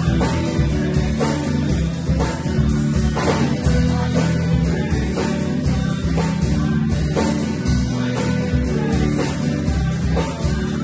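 A live band playing a contemporary worship song together: electric guitar and bass guitar over a drum kit, with the bass notes held steady underneath and regular drum strikes.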